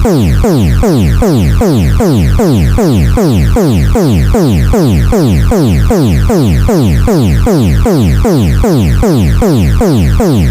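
Loud electronic emergency-alert alarm tone, EAS style: a synthetic tone sweeping sharply down in pitch over and over, about three sweeps a second.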